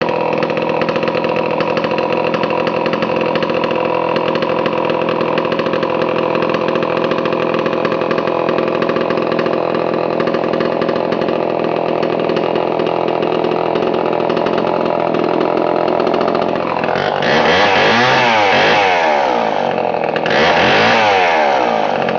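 Vintage Homelite 1130G 100cc two-stroke chainsaw running at a steady idle, then revved up twice near the end.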